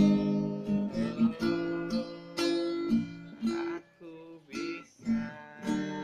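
Acoustic guitar music, chords strummed in a steady rhythm with a few single plucked notes, dropping out briefly about four seconds in.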